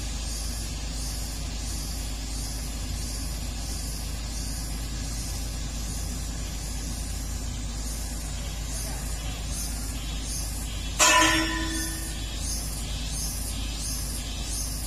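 Komatsu PC200-8 excavator running steadily, with one loud metallic clang about eleven seconds in that rings briefly before fading.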